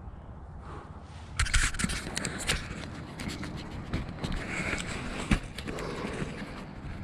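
Close scraping and rustling with many sharp cracks and clicks, starting about a second and a half in, with one loud snap a little past five seconds.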